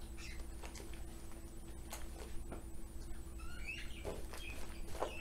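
Green fluffy slime, with shaving cream and lotion worked into it, being kneaded and stretched by hand: soft sticky squishing with scattered small clicks. A few short high chirps come about four seconds in.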